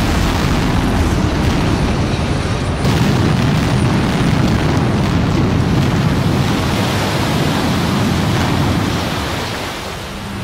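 Explosives blast at a tunnel rock face, heard as a steady rushing rumble of blast noise and sweeping dust. It swells a little about three seconds in and dies away near the end.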